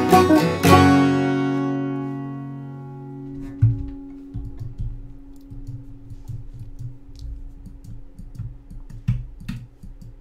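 Acoustic guitar and banjo strum the last chord of a song, which rings and fades away over about three seconds. After that come low bumps and a few faint clicks as the instruments are handled.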